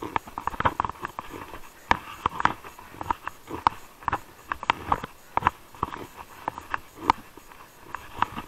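Mountain bike rolling down a stony, rutted track, clattering with irregular clicks and knocks as the tyres, chain and frame are jolted over rocks and gravel.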